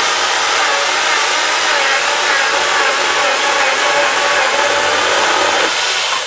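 Small chainsaw cutting through a timber pole, running steadily at full speed, then stopping about six seconds in as the trim cut finishes.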